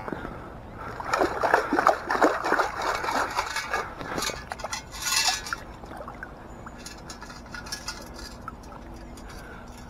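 Lake water sloshing and splashing, busiest in the first few seconds, with a short sharper splash about five seconds in, then only faint trickling and small clicks.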